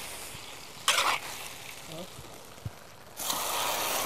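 Pig blood cubes and Chinese chives stir-frying in a large wok: steady sizzling, with a metal ladle scraping across the wok once about a second in. The sizzle turns suddenly louder about three seconds in.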